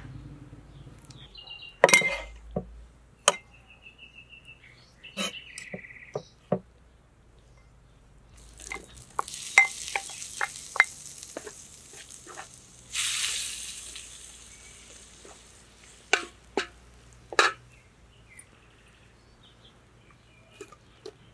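A wooden spoon clinking and scraping against a glass bowl and a wide metal pan, with a stretch of sizzling from about nine seconds in as beaten egg goes into the hot pan over a wood fire.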